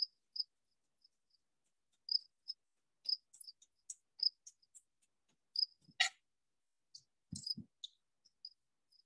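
Chef's knife slicing basil on a wooden cutting board, a few sharp taps and low knocks about six and seven seconds in, over short high-pitched chirps repeating at one pitch, about two a second.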